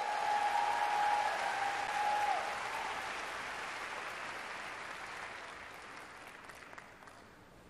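Arena audience applauding, with one long high cheer in the first couple of seconds. The applause then dies away steadily.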